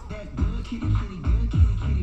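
Background music with a heavy, regular bass beat and electronic, hip hop style sounds over it.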